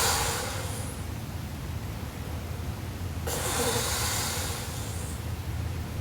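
A sleeping woman snoring: hissing, rasping breaths about three and a half seconds apart, one fading out about a second in and the next running from about three seconds in to five.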